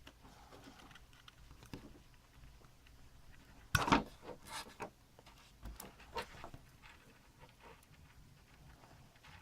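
Dupont jumper wires being handled, pulled off and pushed onto header pins: scattered small plastic clicks and rustles, with a louder clatter about four seconds in.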